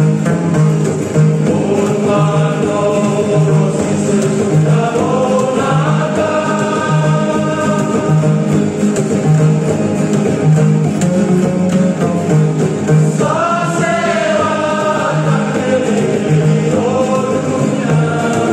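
Group of men singing a Biak-language gospel song together, backed by strummed acoustic guitars or ukuleles and a plucked upright bass pulsing steadily on the beat.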